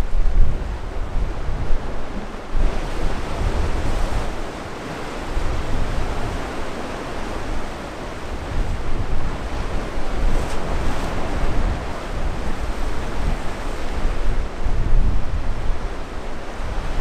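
Wind gusting on the microphone, with uneven low rumbles, over a steady wash of waves.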